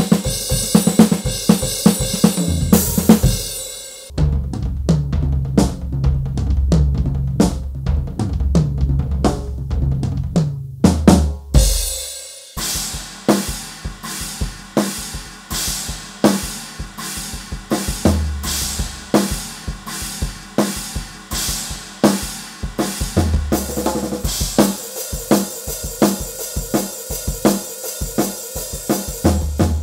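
Donner Backbeat electronic drum kit played through its sound module, with a full groove of kick, snare, hi-hat and cymbals over a backing track with a bass line. A few seconds in, the cymbals drop back and the bass and kick carry the beat. After a short fill and break about twelve seconds in, the full beat returns with steady hits, and crash cymbals fill in again near the end.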